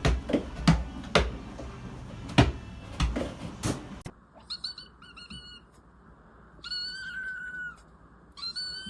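Several sharp knocks and clatters, then a kitten mewing in high-pitched cries: a few short mews, one longer mew, and another near the end.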